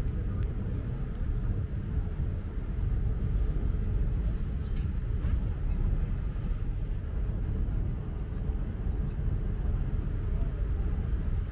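Tour boat's engine running under way on the Seine, heard on board as a steady low rumble.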